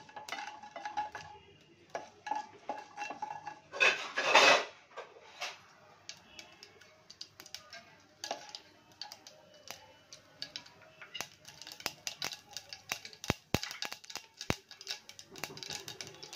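Mustard seeds crackling in hot oil as a tempering starts, with a wooden spatula scraping the pot; the sharp pops grow thick in the last few seconds, and a louder burst of noise comes about four seconds in. The crackling is the cue that the oil is ready for the cumin.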